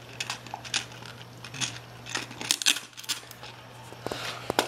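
A dog chewing a hard plastic chicken-shaped treat toy, the plastic cracking and clicking in irregular sharp snaps.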